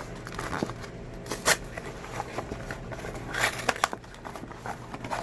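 Small cardboard blind box being opened by hand: irregular clicks, tearing and crinkling of the packaging, with sharper snaps about one and a half seconds in and again near three and a half seconds.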